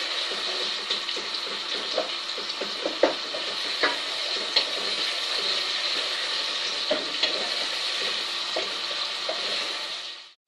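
Chopped onion sizzling in hot oil in a nonstick pot while a wooden spoon stirs it, knocking now and then against the pot. The sizzle drops away abruptly near the end.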